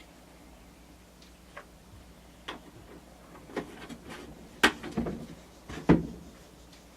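Handling noises: a few scattered sharp clicks and knocks over a low steady hum, the two loudest about four and a half and six seconds in.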